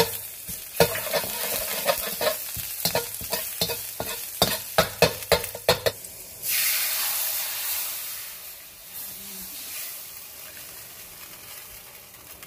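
Metal slotted spatula scraping and knocking against a wok as chopped garlic sizzles in hot oil. About six seconds in, the orange-juice sauce is poured into the hot wok: a sudden loud rush of sizzling that slowly fades.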